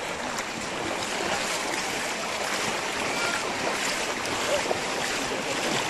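Steady rush and splash of shallow river water as a group of people wades through it on foot.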